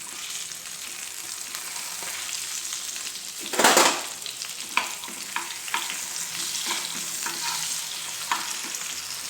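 Indian mackerel frying in hot oil in a pan: a steady sizzle with scattered small pops. About three and a half seconds in there is a short, louder hiss lasting about half a second.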